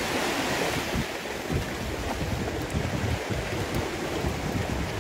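Shallow beach surf washing and splashing, with gusts of wind buffeting the microphone.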